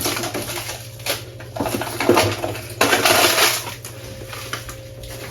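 Rustling and clattering of plastic food packaging and containers being handled and taken out of a freezer, in several bursts, the loudest about three seconds in.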